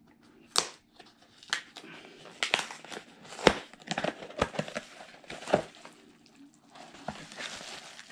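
A mailed package being opened by hand: packaging crinkling, crackling and tearing in irregular sharp bursts, easing into a softer rustle near the end.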